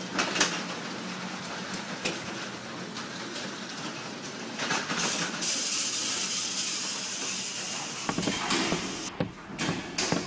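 A wheeled equipment stand rattling as it is pushed at a run along a hard corridor floor: a steady rushing noise with a few sharp knocks, and a louder hiss from about halfway through. Near the end it gives way to a run of sharper, quicker taps.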